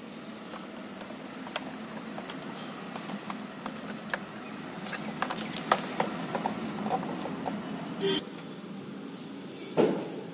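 Handling noise from a plastic-cased voltage stabilizer and its rubber power cord: scattered small clicks and taps, with a short loud burst about eight seconds in and a louder knock near the end, over a steady low background hum.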